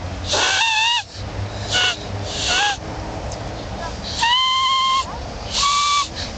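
Grass-blade whistle blown between the thumbs: about five short, breathy squawking blasts, pitched near 1 kHz, some bending upward. The blade gives a rough, harsh tone rather than a plaintive one.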